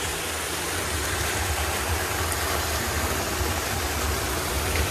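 Heavy rain falling and runoff water pouring into a curbside storm drain grate: a steady rushing hiss over a low, uneven rumble.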